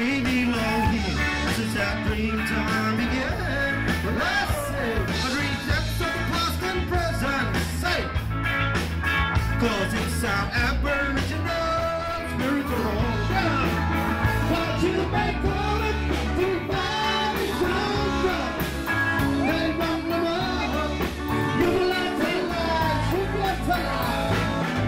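Live band playing loudly through a PA, with electric guitar, drums and a man singing lead.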